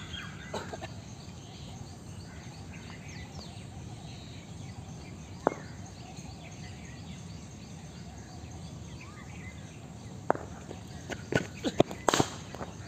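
Sharp cracks of a cricket ball on bat and concrete pitch in the practice nets: one about five seconds in, another about ten seconds in, and a quick cluster near the end, the loudest a bat strike. Between them, a steady outdoor background with faint bird chirps.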